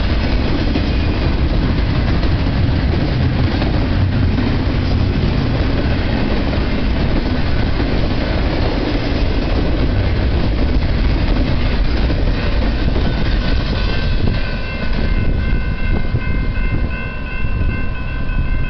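Double-stack intermodal freight cars rolling past at speed: a steady, loud rumble and clatter of wheels on the rails. Several steady high-pitched tones join in about three-quarters of the way through and hold to the end.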